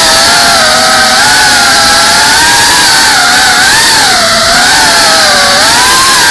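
Brushless motors and ducted propellers of an iFlight Cinelog 35 cinewhoop FPV drone whining, recorded by the naked camera on board. The pitch wavers up and down as the throttle changes, over a steady rushing hiss.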